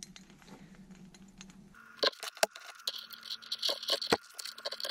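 An adjustable wrench and channel-lock pliers on a brass compression nut and fitting as the nut is snugged down. About two seconds in begins a string of irregular sharp metal clicks and scrapes.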